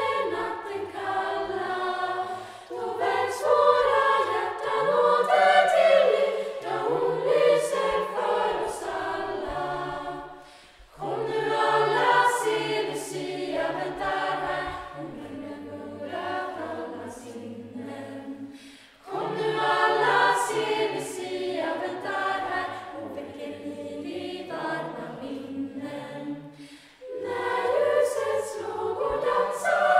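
Choir of girls and young women singing in unison phrases, with short breaks between phrases about every eight seconds.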